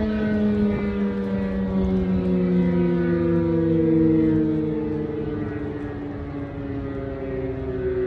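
H.O.R. Super Sirex 15 dual-rotor civil defense siren sounding its two-note tritone chord, the whole chord sliding slowly down in pitch, over a steady low rumble.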